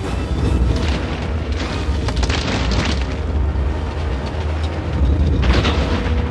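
Cartoon soundtrack of deep, continuous rumbling booms over a hiss of heavy rain, with a dramatic music score underneath; the rumble swells twice, about two seconds in and again near the end.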